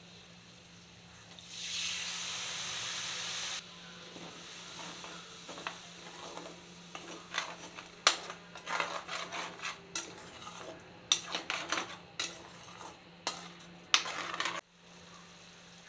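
Liquid poured into a pan of hot oil and spices sizzles loudly for about two seconds. A spatula then stirs the gravy, knocking and scraping against the pan again and again, until the sound cuts off sharply near the end.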